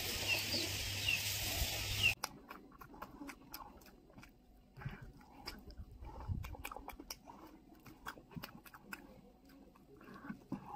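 Steady outdoor hiss with a few short high bird chirps, which stops abruptly about two seconds in. Then come close-miked eating sounds: irregular clicks, chewing and lip smacks of a person biting into chicken and eating rice with her hands.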